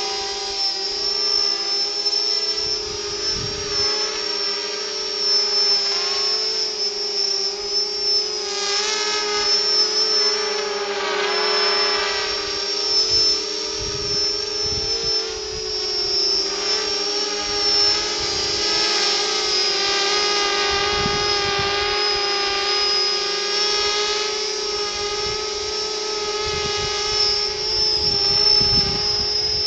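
Small quadcopter's four Sunnysky 2212 1400kv brushless motors spinning cut-down 5x4.5 propellers in flight, a steady high-pitched whine whose pitch wavers as the throttle changes, louder for a few seconds around the middle.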